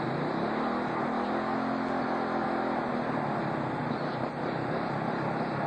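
Small go-kart engine running with the kart standing still; its pitch rises about half a second in as it revs, then it runs steadily.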